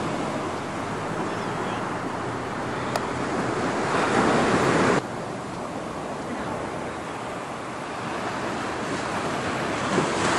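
Ocean surf washing onto a sandy beach, a steady rush of noise that swells about four seconds in and then drops suddenly.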